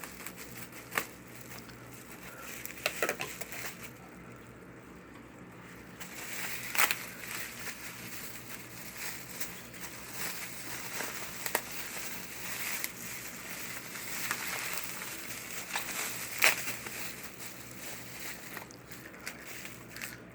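Toy packaging being opened by hand: crinkling and crackling, with scattered sharp clicks and rustles.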